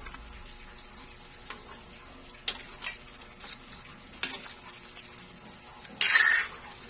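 Metal ladle stirring pork hocks and taro chunks in a large metal pan of water heating toward the boil, with a few light knocks of the ladle against the pan and one louder scrape about six seconds in.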